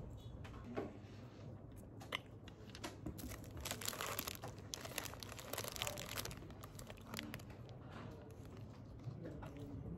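Thin clear plastic bag crinkling and crackling as a bread roll is handled and pulled out of it, densest in the middle with scattered crackles before and after.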